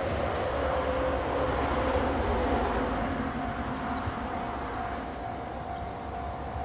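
JR Shikoku express diesel railcar (2000/N2000 series) approaching slowly, its engine running with a steady rumble and whine. The sound swells to its loudest about two and a half seconds in, then eases.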